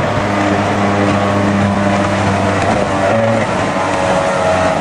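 Race jet boat's big-block V8 running hard at high revs, with the hiss of water and spray from its wake. The engine note dips briefly about three seconds in, then picks up again.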